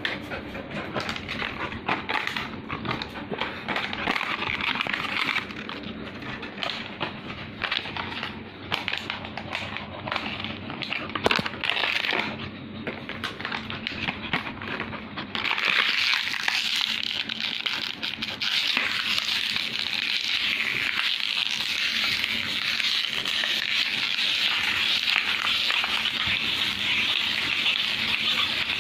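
Labrador retriever chewing and mouthing a piece of clear plastic, crinkling and crackling in quick irregular clicks. About halfway through it turns into a steadier, denser hiss.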